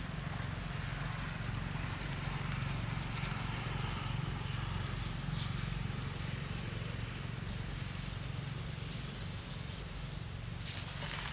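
Outdoor ambience: a steady low hum with light rustling and crackling of dry leaf litter, and a brief louder rustle near the end.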